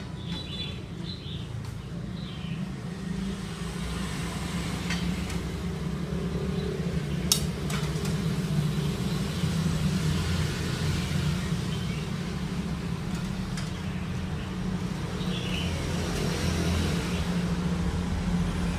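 Steady low rumble, with one sharp clink of a metal ladle against a bowl about seven seconds in.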